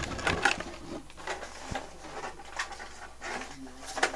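Clear plastic doll packaging being handled and pulled from a cardboard box: scattered clicks, taps and crinkles at irregular intervals.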